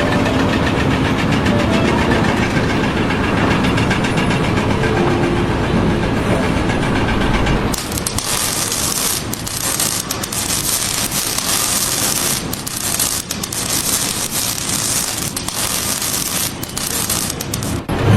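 An engine running steadily. About eight seconds in, the sound switches abruptly to a harsh hiss with crackles.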